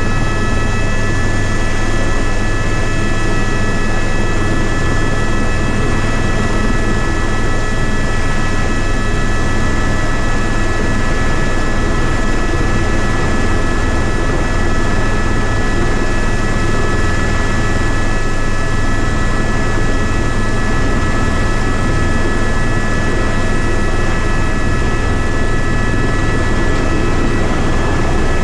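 Helicopter engine and rotor noise heard from inside the cabin with the side door open, loud and steady, with several high whining tones from the turbine over a low hum.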